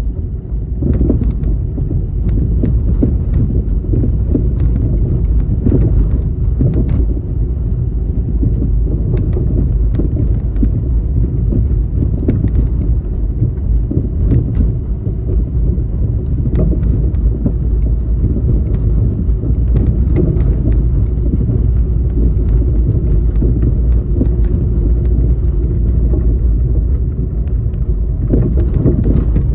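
Car driving along a city road: a steady low rumble of engine and road noise, with scattered light knocks.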